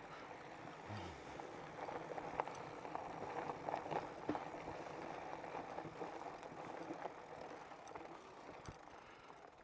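Fat-tire e-bike rolling over a rough trail: tyre noise with irregular clicks and rattles, getting quieter near the end.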